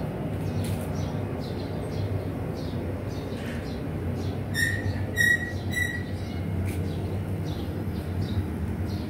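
Three short, high chirps about half a second apart near the middle, from a small bird, over a steady low background rumble.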